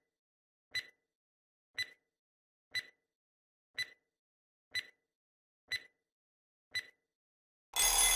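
Quiz countdown-timer sound effect: a short, sharp tick about once a second, eight ticks in all. Near the end a loud, harsh buzzer-like alarm sounds as the time runs out.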